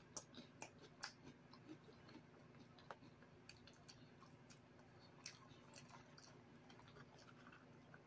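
Faint chewing of nacho chips, with scattered soft mouth clicks and smacks.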